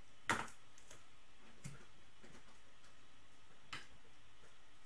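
Three small, sharp clicks and taps as trading cards and a marker are handled on a tabletop, the first and loudest about a third of a second in.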